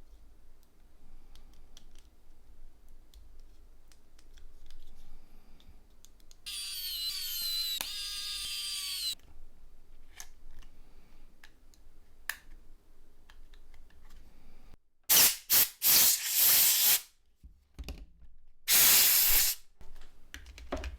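Small clicks of plastic parts being handled and pressed together on a Nokia 6151. Partway through comes a short electronic tone melody of about two and a half seconds, with stepping pitches that slide down at the end. Near the end come four short hissing blasts of air and then one longer one, the loudest sounds here.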